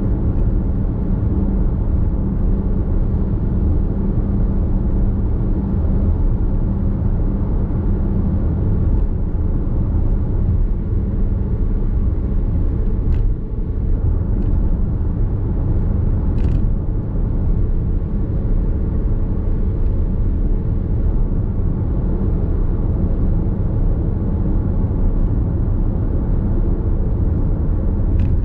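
Nissan X-Trail Hybrid cruising at expressway speed, heard from inside the cabin: a steady low road and tyre rumble.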